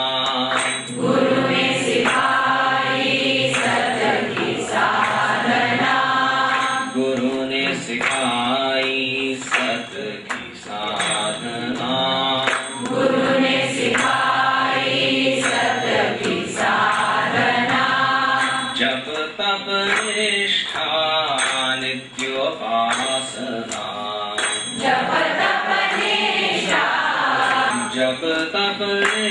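Male voice singing a devotional Hindi bhajan into a microphone in long melodic phrases, with brief pauses between lines.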